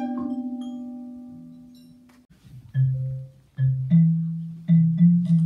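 Live musical accompaniment: a held chord dies away over the first two seconds, then a marimba plays low single notes one at a time, slowly at first and a little faster near the end.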